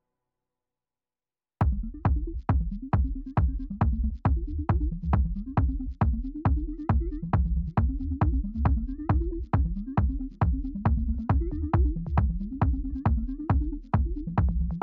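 Electronic dance music with a fast, steady beat and deep bass, starting suddenly about a second and a half in after silence.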